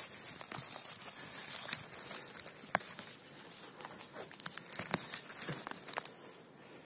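A hand brushing and scraping through dry conifer needles and forest-floor litter: close rustling and crackling with scattered sharp snaps, easing off near the end.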